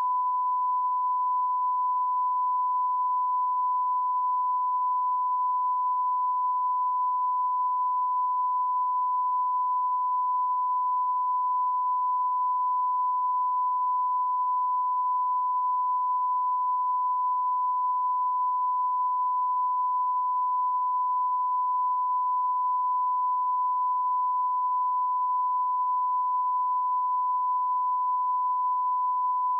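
Steady 1 kHz test tone, one pure unchanging pitch: the line-up reference tone laid at the head of a broadcast news tape.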